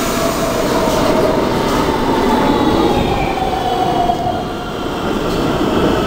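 Subway train running into the station: a loud, steady rumble of steel wheels on the rails, with whining tones that slowly fall in pitch as the train slows.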